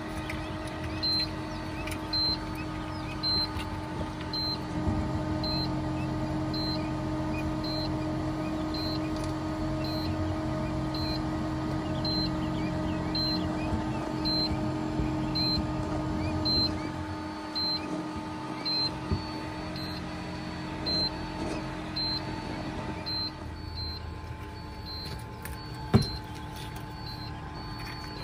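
Steady hum of an incubator's fan and motor, with a short high tone repeating about once a second and faint peeping of newly hatched quail chicks. A sharp knock near the end.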